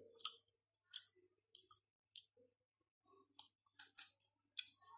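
Faint, scattered clicks and smacks of a person eating steamed crab by hand: fingers on the shell and meat, and the mouth chewing.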